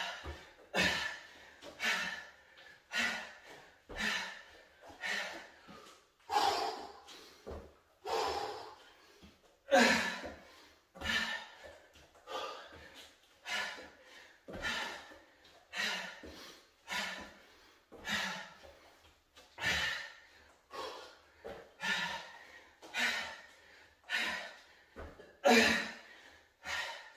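A man breathing hard from exertion mid-workout, with sharp, forceful exhales about once a second.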